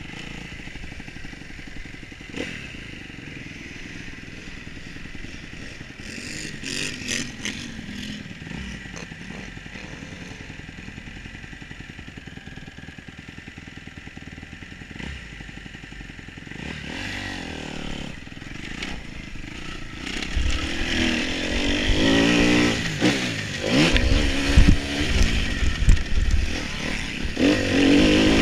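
Motocross dirt bike engine heard from the rider's position. It runs at low revs for the first part, then about twenty seconds in it gets much louder, revving up and down repeatedly as the bike accelerates and shifts.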